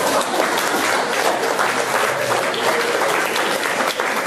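Audience applauding, many hands clapping at once, steady throughout.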